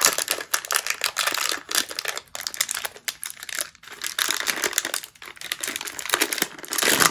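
Plastic wrappers of individually packed bánh pía (Hopia) cakes crinkling as they are handled and shuffled on a plate: a dense, irregular run of crackles with a brief lull about halfway through.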